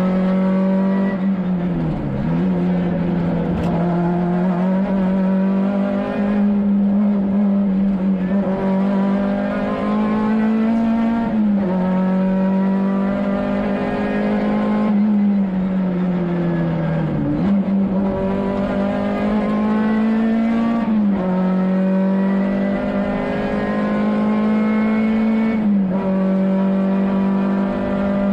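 Škoda 130 LR rally car's rear-mounted four-cylinder engine at high revs under full load, heard from inside the cabin. Its note holds high and creeps slowly upward, with several sharp dips in pitch that quickly recover.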